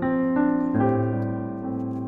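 Background music of sustained piano or electric-piano chords, changing chord a few times in the first second and then holding.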